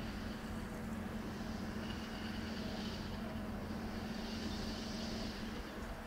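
Steady low hum of distant vehicle engines, with one humming pitch that cuts off shortly before the end. Faint high-pitched sounds come and go over it.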